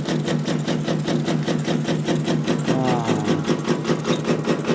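Automatic makeup remover cotton pad machine running at production speed, a fast, even mechanical clatter of several strokes a second over a steady motor hum.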